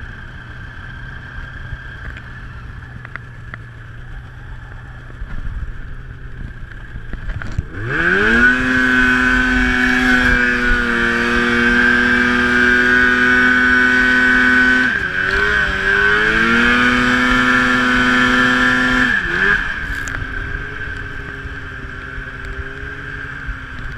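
Arctic Cat snowmobile engine running at low revs, then revved hard about eight seconds in and held at high, steady revs as the sled pulls away, the note dipping briefly twice before settling back to a lower steady pitch near the end. A steady high whine runs throughout.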